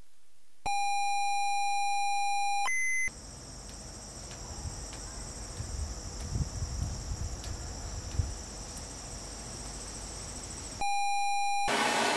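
A steady electronic beep tone with a buzzy, overtone-rich sound, held for about two seconds with a short higher blip after it. Then comes about seven seconds of outdoor ambience: a steady high hiss with irregular low rumbling. The beep tone comes back briefly near the end.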